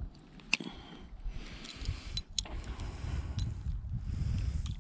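A few sharp metallic clicks as fishing pliers and a lure are handled while unhooking a trout, over a low steady rumble.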